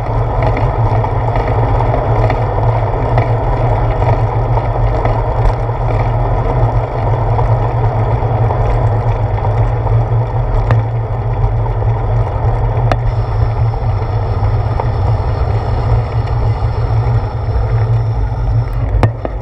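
Steady wind and road rumble picked up by a handlebar-mounted GoPro Hero 4 on a bicycle rolling along a concrete path, with a few sharp clicks.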